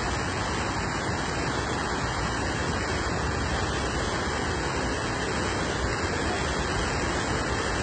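Cold lahar from Mount Agung, a flood of volcanic mud and water, rushing steadily down a river channel as one continuous rush of water.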